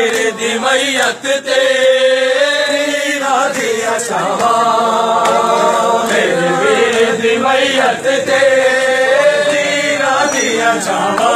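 A noha, a Shia mourning lament in Punjabi, chanted by a group of voices in long, drawn-out phrases with slowly bending held notes.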